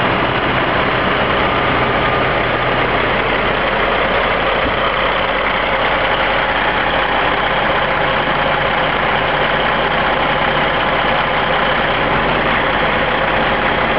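Large truck engine idling steadily.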